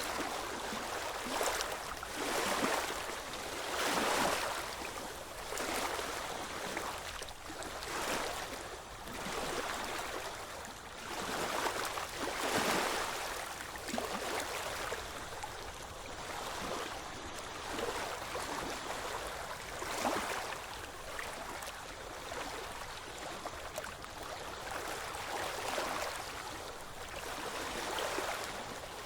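Ocean waves breaking and washing on a shore: a continuous hiss of surf that swells and falls every one to few seconds, with the strongest surges about four and twelve seconds in.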